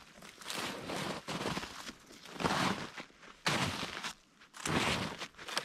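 Footsteps crunching through snow, about one step a second.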